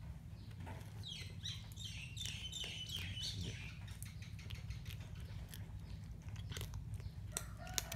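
A cat chewing soft bread, heard as scattered small clicking chews. For a couple of seconds near the start a bird chirps a quick run of falling notes, over a steady low background hum.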